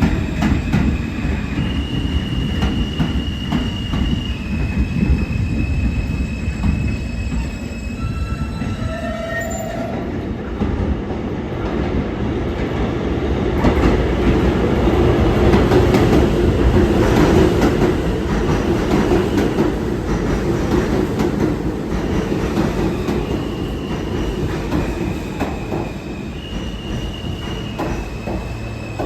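New York City Subway R160 train running through the station: a heavy wheel-on-rail rumble that swells to its loudest about halfway through, with high steady tones that step up and down in pitch.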